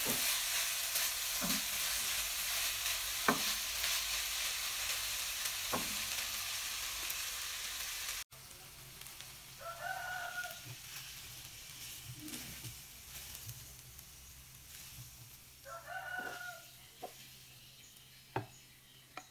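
Chicken and shredded ginger sizzling in a wok while a spatula stirs and scrapes the pan. About eight seconds in it cuts to a quieter stretch of the spatula and pan scraping the food onto a ceramic plate, with two short squealing tones.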